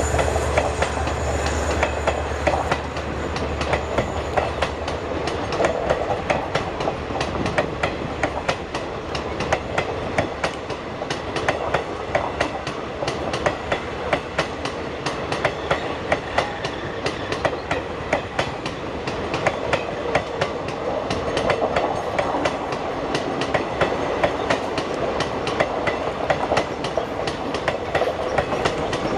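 Passenger train coaches rolling past, their wheels clicking steadily over the rail joints in a continuous clickety-clack. A low hum fades away in the first seconds.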